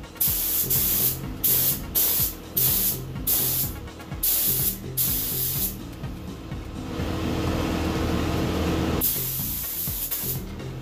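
Air spray gun hissing as paint is sprayed onto a car hood, in a run of short trigger bursts over the first five seconds. After a pause of about three and a half seconds, one steady pass starts near the end.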